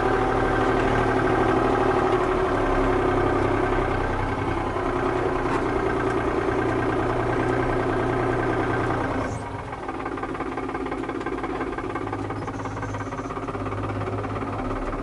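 Farm tractor engine running steadily; about nine seconds in it drops to a lower, quieter running speed.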